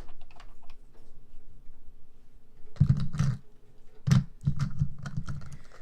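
Small plastic miniature food items clicking and tapping as they are handled and set into a toy plastic mini fridge, with a few dull thumps from about three seconds in.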